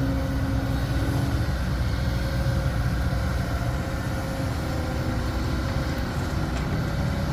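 Motor vehicle engine running steadily with road noise, a low continuous rumble with a held tone that drops away about a second and a half in.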